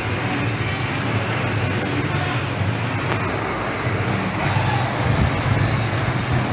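Air-resistance indoor rowing machine (Concept2 type) running as the athlete rows, its flywheel fan giving a steady whirring rush with a low hum.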